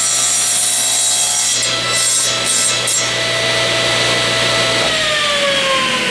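Table saw running with a steady whine as its blade crosscuts a short piece of hardwood for about the first three seconds. About five seconds in the motor is switched off and the whine falls steadily in pitch as the blade spins down.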